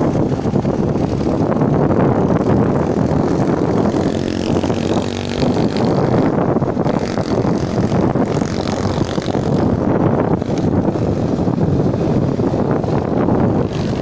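Wind buffeting the microphone of a moving motorcycle, over the steady engine and road noise. About four seconds in, a short pitched engine hum stands out for a second or so.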